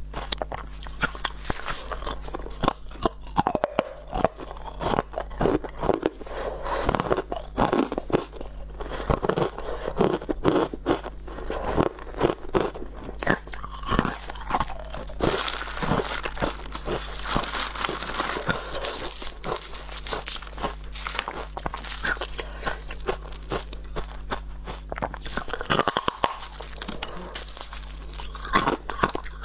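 Frosted ice chunks bitten and crunched between the teeth close to a clip-on microphone: a steady run of sharp cracks and crunches, with a louder, hissier stretch about halfway through.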